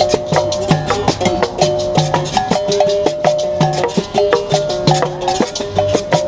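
Berimbau being played in a fast, steady rhythm, its struck wire switching between pitched notes, with shaker and other hand percussion clicking along.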